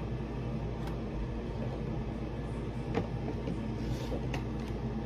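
A few light clicks and taps of household things being handled and set down while tidying, over a steady low hum of room noise.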